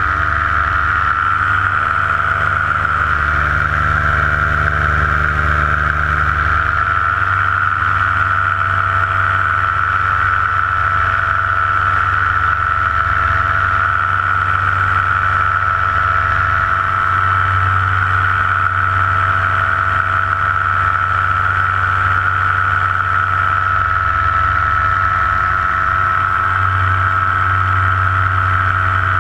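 Paramotor engine and propeller running steadily in flight, a constant drone with a strong high whine; the low note shifts slightly a few times.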